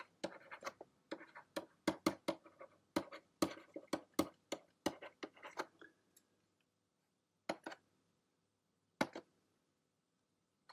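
Pen writing: a quick run of short scratching, tapping strokes for about six seconds, then two lone taps.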